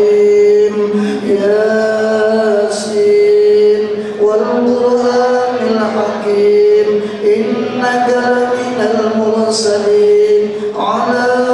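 A man chanting in Arabic through a microphone, in long, held melodic phrases with short breaks between them.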